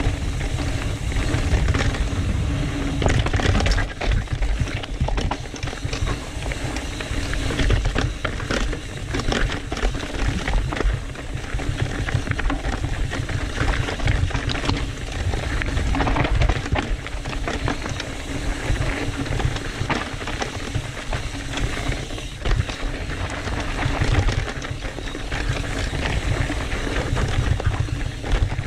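Trek Fuel EX 7 full-suspension mountain bike clattering down a rocky trail, with constant knocks and rattles over the rocks over a steady low rumble.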